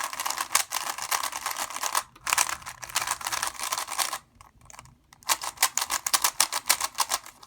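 A cheap plastic 3x3 speed cube being turned fast by hand: dense runs of clicking from the layers, in three spells with short pauses about two seconds and about four and a half seconds in. The cube is unlubricated, fresh out of the box.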